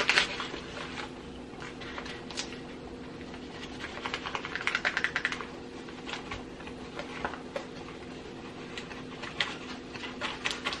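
Light clicking and rustling as plastic measuring spoons scoop cornstarch from a cardboard box, in a quick flurry about four to five seconds in and again near the end, over a low steady hum.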